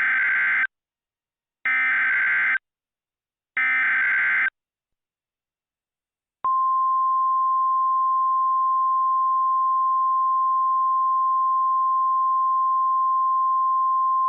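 Emergency Alert System SAME header: three short bursts of encoded data tones, about a second apart. A couple of seconds later comes the steady single-pitch NOAA Weather Radio warning alarm tone, which holds on. Together they announce that an emergency alert message is about to be read.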